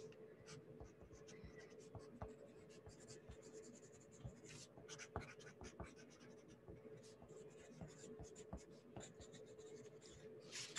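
Faint scratching of writing on paper, in short irregular strokes with small taps, over a faint steady hum.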